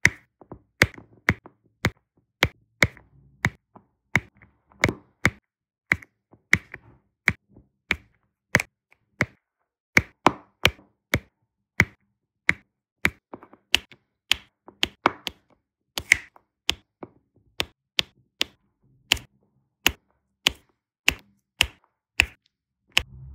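Diamond painting pen pressing faceted resin drills onto the adhesive canvas, one sharp click per drill, about two a second in a steady working rhythm.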